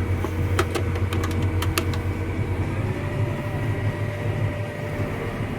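Farm tractor engine running steadily, heard from inside the cab, with a deep hum and a few sharp clicks in the first two seconds. The engine note rises slightly about three seconds in.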